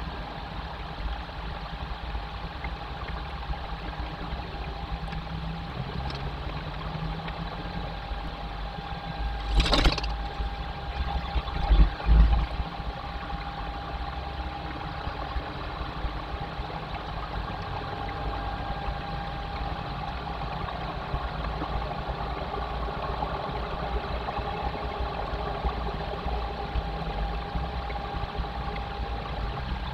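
Steady low rumble with a constant faint hum. Two louder bumps break it, about ten and twelve seconds in.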